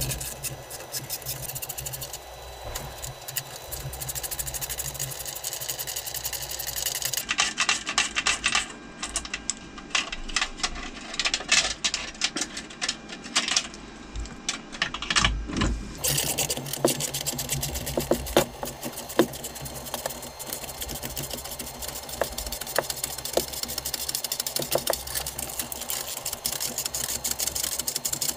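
Metal band clamps on an aircraft avionics extract fan being unfastened with hand tools: runs of quick metallic clicks and small rattles, busiest in the middle of the stretch, over a steady background hum.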